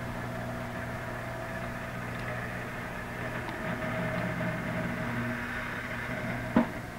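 George Foreman Jr. rotisserie running, its motor humming steadily as the basket turns. A single sharp click comes near the end.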